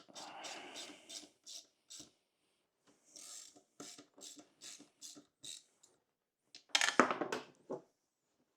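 Quarter-inch socket ratchet clicking in quick runs as case bolts are run into a chainsaw's side case, with a louder rattle of knocks about seven seconds in.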